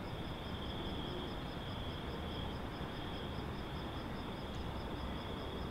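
Evening outdoor ambience: a steady low rumble with insects chirping high and evenly, about five pulses a second, over a steady high trill.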